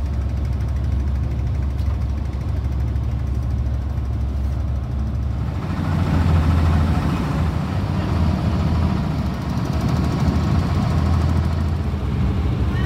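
Tour boat's engine running steadily with a deep hum, heard on board; about five and a half seconds in it grows louder and rougher.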